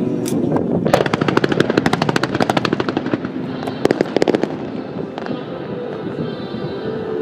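Fireworks going off in a rapid string of sharp cracks and pops from about a second in, thinning out, with another quick cluster of cracks near the middle.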